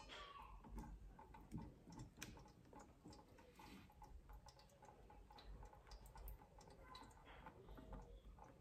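Near silence with faint, irregular ticks of water dripping from a pin-pricked plastic bottle onto cloth-wrapped licorice root in a steel colander and pot.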